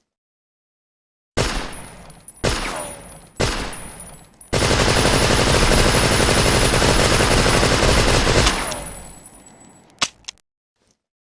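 Thompson submachine gun firing: three single shots about a second apart, then a continuous burst of automatic fire lasting about four seconds that dies away with an echoing tail, and one more short report near the end.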